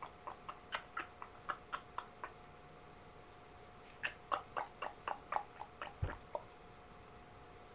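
Quick light clicks imitating a horse's trotting hoofbeats. They come in two runs, about four a second and then a faster one, with a dull thump near the end of the second run.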